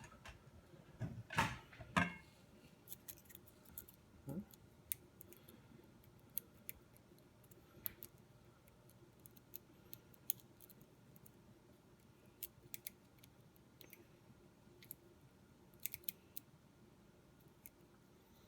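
Lock picking on an ERA pin-tumbler lock: sparse, sharp little clicks of the pick and pins inside the cylinder, after a few louder knocks and scrapes of the lock and tools being handled in the first two seconds.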